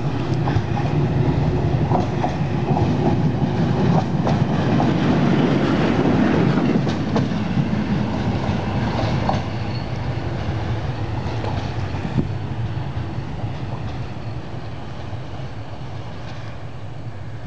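English Electric Class 20 diesel locomotive passing, its engine running with a steady drone and its wheels clicking over the rail joints. The sound eases off over the last several seconds as the locomotive moves away.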